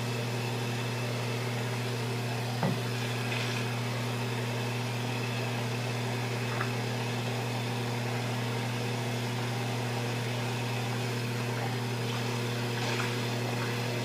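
Steady low mechanical hum, with a single faint click about three seconds in.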